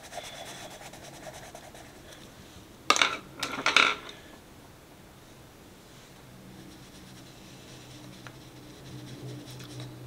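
Derwent Inktense watercolour pencil scratching on sketchbook paper, then a short clatter of about four sharp clicks, about three seconds in, as hard art tools are set down and picked up on the tabletop. A faint steady hum follows.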